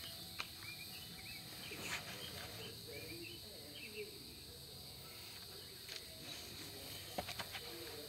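Birds chirping in short repeated calls over a steady high insect drone, with a few light knocks as a torpedo level and concrete block are handled, three in quick succession near the end.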